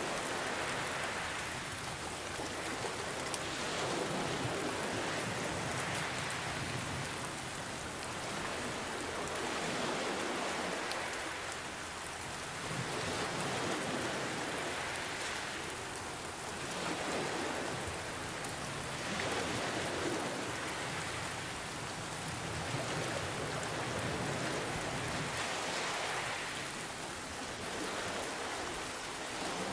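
Steady rainfall mixed with gentle ocean waves, the noise swelling and easing every few seconds as waves wash in and draw back.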